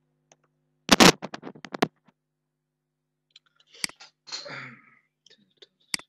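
A quick burst of computer keyboard typing about a second in, then single mouse clicks a little before four seconds and again near the end, with a brief soft noise between them.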